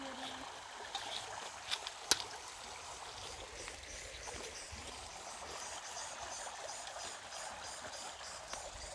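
A steady rushing noise with a single sharp click about two seconds in.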